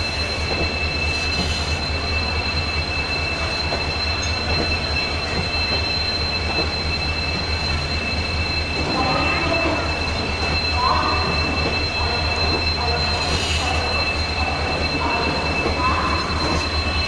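Passenger coaches of an arriving Indian Railways express rolling slowly past, with a steady high-pitched two-tone squeal from the running gear over a low rumble.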